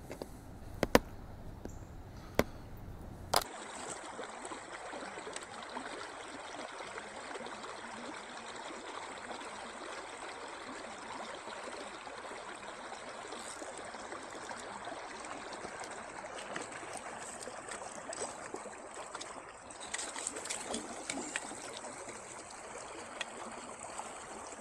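A few sharp clicks of a plastic tackle box being handled in the first three seconds or so, then the steady trickle and rush of a shallow stream running over rocks.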